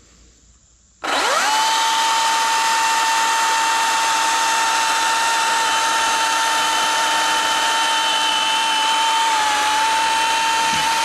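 Milwaukee M18 Fuel 14-inch top-handle battery chainsaw switched on about a second in and held at full speed: a loud, steady electric whine with chain noise. It begins winding down at the very end.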